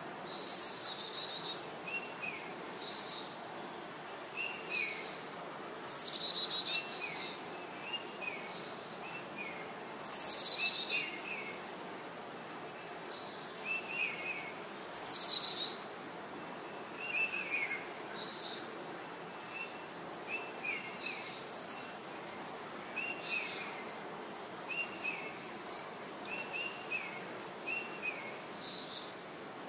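Baby parrot chirping over and over, with four louder, harsher calls that fall in pitch.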